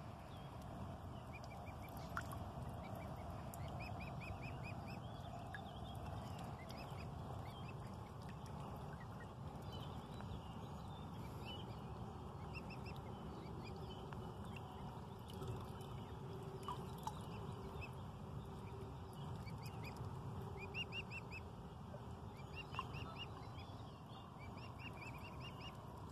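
Faint bird chirps in short, quick runs of high notes, several times over, above a steady low outdoor rumble.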